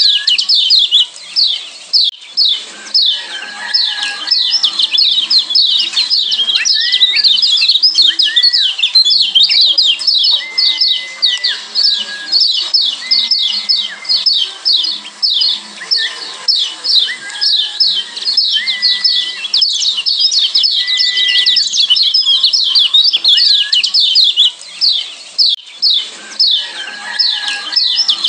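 Lombok yellow white-eye (kecial kuning) calling: a fast, continuous stream of high, short chirps ('ciak' calls), with short clear whistled notes lower down. The chatter thins briefly twice, just after the start and near the end.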